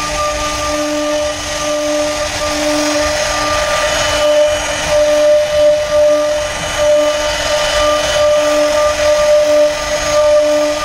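A high-speed electric power carving tool running steadily as it cuts into wood, with a constant whine over a hiss.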